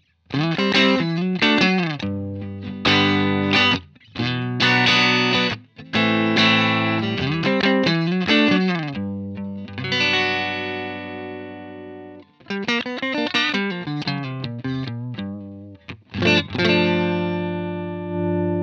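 Suhr electric guitar played through a Universal Audio UAFX Lion '68 Super Lead amp-emulator pedal, in Super Lead mode with its 4x12 Greenback cabinet emulation: strummed chords and short riffs with a light drive, starting to break up as the volume is raised. About ten seconds in, one chord is left to ring out before the playing resumes.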